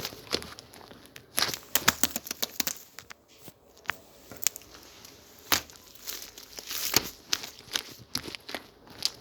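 Slime being squished, stretched and pressed by hand, giving irregular sharp pops, clicks and crackles, several a second, some louder than others.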